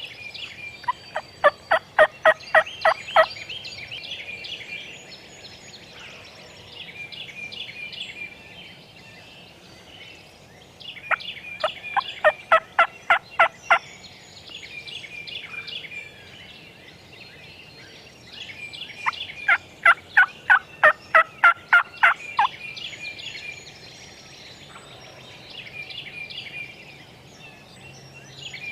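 Three loud runs of turkey yelps, each two to three seconds of evenly spaced notes at about four a second, with songbirds chirping throughout.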